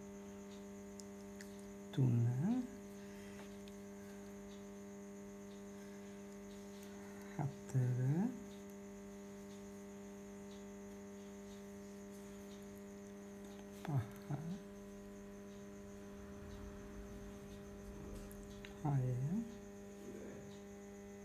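Steady electrical mains hum with a stack of overtones, broken four times by a short softly spoken word: a woman counting crochet stitches aloud.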